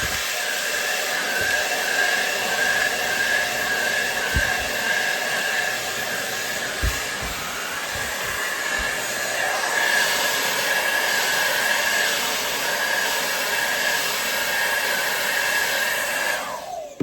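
ANIEKIN 1875-watt hair dryer running steadily, a strong rush of air with a high whine over it and a few soft bumps from handling. Near the end it is switched off and winds down with a falling pitch.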